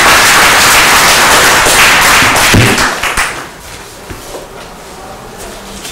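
Audience applause, loud at first and dying away about three seconds in.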